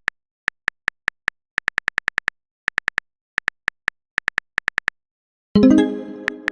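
Texting-story typing sound effect: an irregular run of short, identical high beeps, as if letters are being typed. About five and a half seconds in, a loud synthesized musical chord strikes and fades away.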